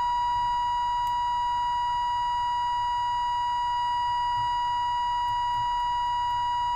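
Steady test tone from a Grundig Trento valve radio's loudspeaker: the radio is receiving a signal generator's modulated signal while its antenna coil on the ferrite rod is peaked during alignment.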